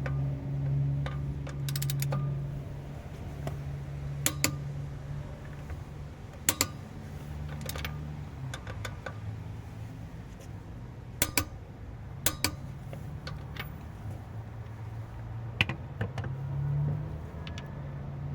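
A handful of sharp metallic clicks and knocks, scattered irregularly, from hand tools being handled at a car wheel's lug bolts, over a steady low hum.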